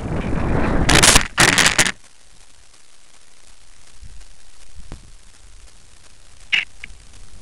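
Wind rushing over a light thermal glider's onboard camera. About a second in come two loud scraping impacts as the glider touches down and skids on tarmac, stopping before two seconds. After that only a low hiss with a couple of faint clicks.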